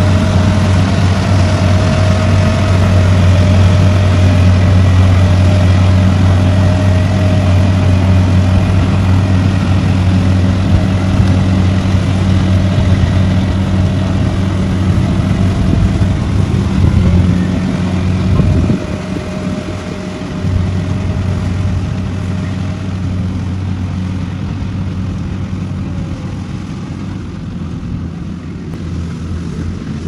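Kubota rice combine harvester running steadily as it cuts and threshes rice, a constant low engine drone. The sound drops noticeably in loudness about two-thirds of the way through.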